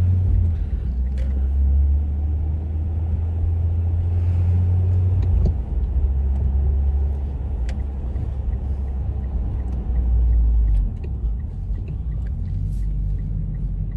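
Mitsubishi Lancer Evolution X's turbocharged 2.0-litre four-cylinder engine running as the car drives, a steady low drone. Its pitch steps down about five seconds in and again near the eleven-second mark.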